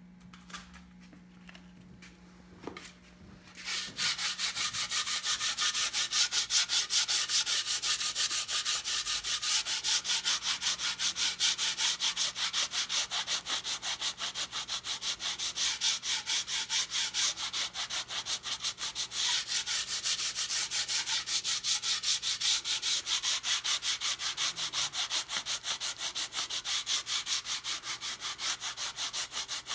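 Sandpaper on a hand sanding block rubbing along the wooden edge of a half-hull boat model in quick, even back-and-forth strokes. It starts about four seconds in, after a few small handling clicks.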